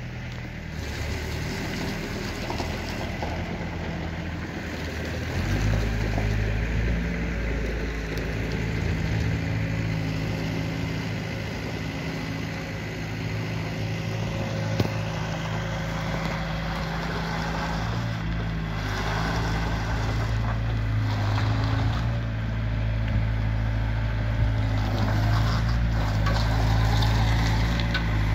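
Diesel engine running steadily with a low hum. It steps up in loudness about five seconds in and grows louder again later, as if coming closer or working harder.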